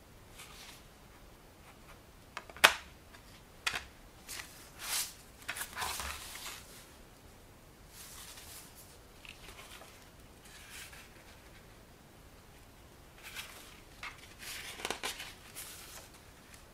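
A plastic DVD case being handled: one sharp click about two and a half seconds in as the disc goes back into the case, a few lighter clicks and the paper booklet sliding out, then the booklet's pages rustling as it is opened near the end.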